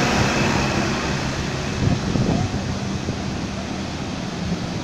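Steady rush of floodwater pouring across a road, with a truck engine running as the truck wades through the water. A nearer truck's engine fades in the first second.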